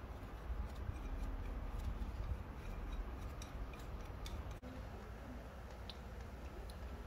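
Light metallic clicks and ticks of a steel jam nut being spun by hand onto the threaded end of a car's inner tie rod, over a low steady rumble. The clicks come irregularly for the first four seconds or so and stop at a sudden break.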